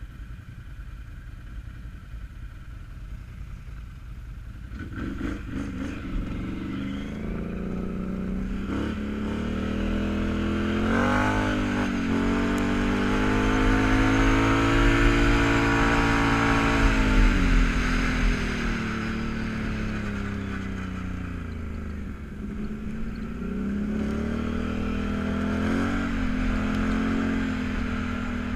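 Can-Am Outlander ATV engine idling low, then revving up about five seconds in as the quad pulls away. Its pitch climbs and falls with the throttle, peaking around the middle, dropping back, and rising again near the end.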